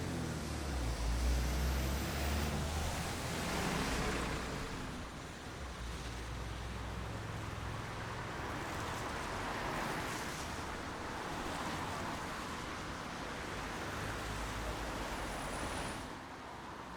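Rain falling, a steady even hiss, with a deep rumble swelling under it in the first few seconds. The sound drops in level about a second before the end.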